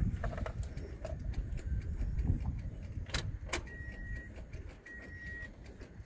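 Footsteps and camera-handling rumble, with two sharp clicks a little past halfway. From about two-thirds in, a faint high beep repeats about once a second. No starter cranking is heard: the Corolla's starter does not engage.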